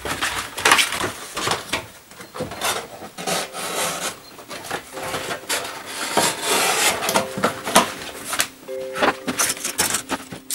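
Thin cardboard cereal boxes being handled, flattened and slit with a utility knife: irregular rustling and scraping strokes.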